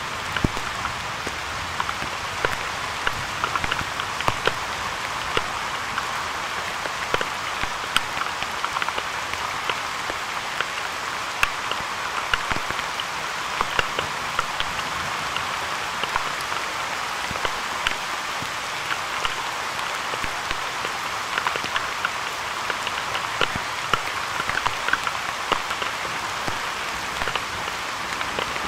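Steady rain falling, with many separate drops ticking close to the microphone.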